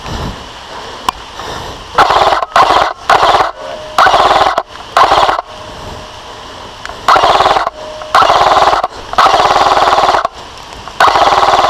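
Electric airsoft rifle firing on full auto in about nine short bursts of rapid shots, each under a second long, with brief pauses between.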